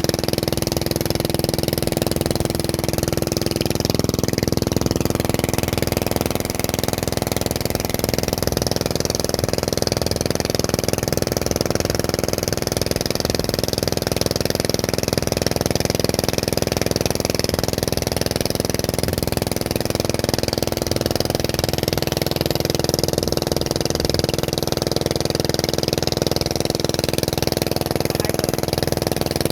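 A small engine running steadily at an unchanging speed: a constant hum with a hiss above it.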